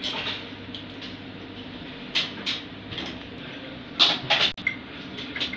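Hands working with pliers and small metal parts, making short metal clicks and rattles with a louder cluster of knocks about four seconds in, over a steady low hum of running equipment.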